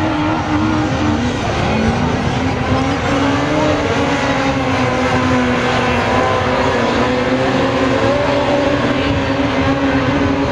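Several autograss racing cars' engines running hard as a pack circles a dirt track, their overlapping notes rising and falling as the drivers rev through the bends.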